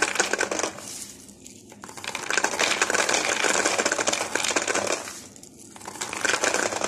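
Dried fava beans clattering as they are dropped by hand through a paper cone into a plastic bottle. The clicking is dense and comes in three spells, the longest in the middle.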